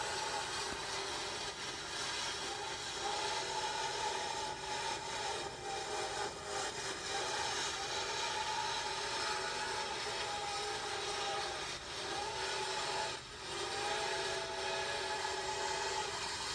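Train running on the rails: a steady rushing noise with a wavering, high metallic squeal on top, typical of wheels or brakes on the rail. The sound dips briefly twice near the end.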